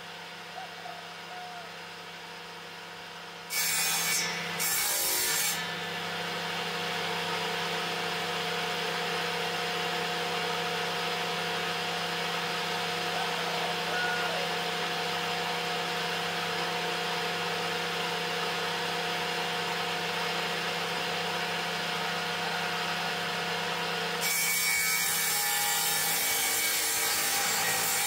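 Electric bench-mounted woodworking machine running steadily, its motor humming, as a wooden plank is fed through the cutter: two short bursts of cutting about four seconds in, then a long continuous cut that gets louder near the end.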